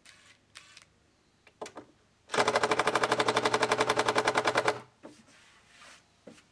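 Cordless impact driver hammering a screw down into plywood: a rapid, even rattling that starts a little over two seconds in and lasts about two and a half seconds. A few faint clicks of handling come before and after it.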